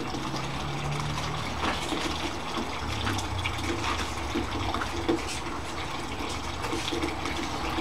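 Grape juice running steadily out of a wine press into a container, with a few faint knocks.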